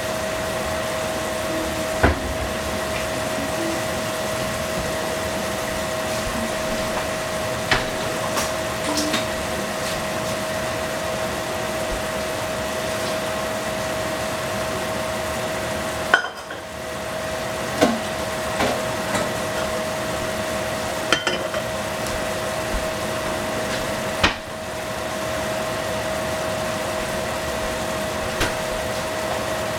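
Mushrooms simmering in sauce in a frying pan: a steady bubbling sizzle with a few scattered small pops and clicks, over a steady hum.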